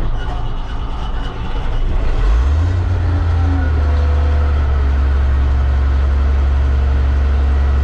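New Holland 1069 self-propelled bale wagon's engine, heard from the cab: an uneven rumble for about two seconds, then it catches and settles into a steady, low-pitched run.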